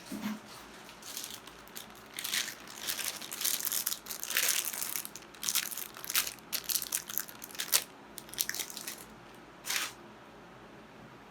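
Plastic zip ties being handled: a run of irregular crinkling and rasping bursts of varying length, ending about ten seconds in.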